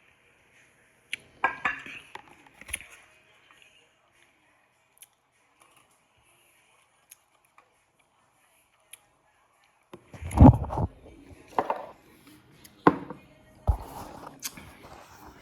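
Kitchen handling sounds: a few clicks and knocks early on, then after a long quiet gap a run of louder knocks and clatter, like dishes and utensils being set down and moved.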